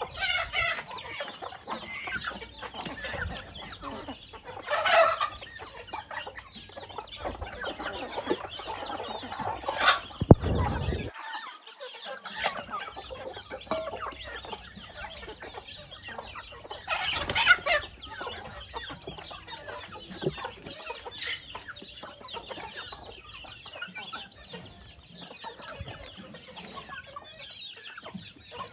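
A flock of domestic chickens clucking and calling continuously while foraging, many birds overlapping, with a few louder calls. A short low rumble comes about ten seconds in.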